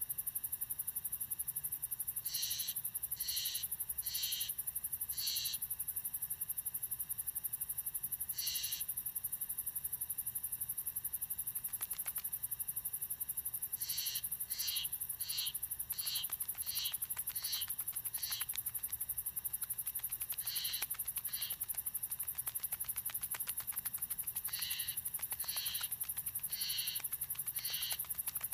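Summer countryside ambience: a steady high-pitched insect buzz with short chirps that come in runs of several, about one a second, then stop and start again.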